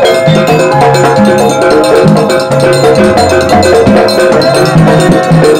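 Banyuwangi kendang kempul ensemble playing: a pair of kendang hand drums beat a steady rhythm under a bamboo flute melody and strummed acoustic guitars.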